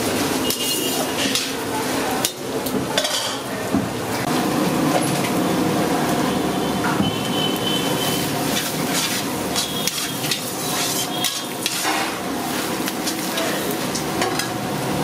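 Sliced onions and green chillies stir-frying in hot oil in a large metal kadai: a steady sizzle, with a spatula repeatedly scraping and knocking against the pan.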